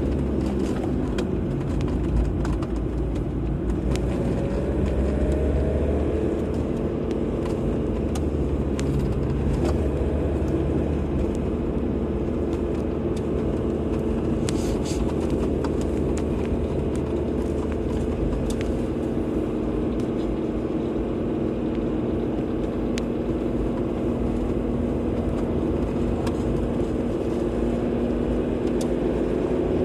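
A car driving at a steady pace: continuous low rumble of engine and tyres on the road, with an engine tone that rises a little a few seconds in and a few faint clicks here and there.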